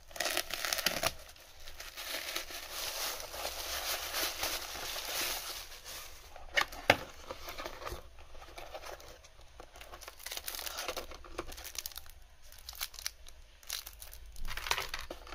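Plastic shipping bag and packaging being torn open and crinkled by hand, with cardboard box flaps handled. There are a few sharp clicks about seven seconds in.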